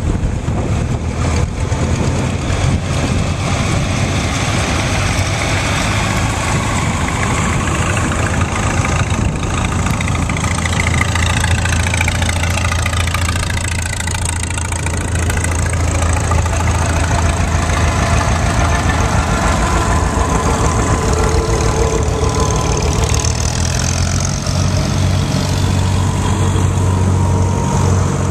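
Farm tractors, green John Deeres among them, driving past one after another, their engines running at a steady low drone. The sound swells and sweeps in pitch around the middle as a tractor passes close.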